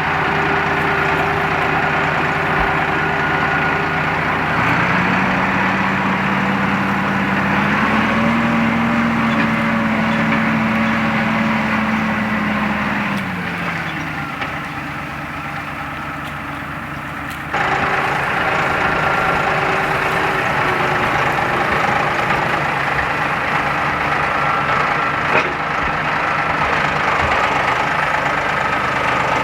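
An engine idling, speeding up about five seconds in and settling back down around thirteen seconds, with a sudden jump in loudness a few seconds later.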